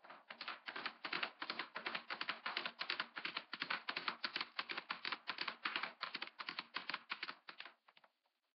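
A rapid, even run of sharp clicks, about four a second, that stops suddenly about eight seconds in.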